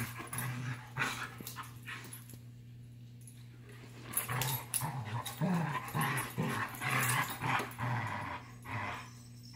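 A Labrador and a Giant Schnauzer play-fighting: low play growls mixed with scuffling and body knocks, easing off about two seconds in and picking up again around four seconds.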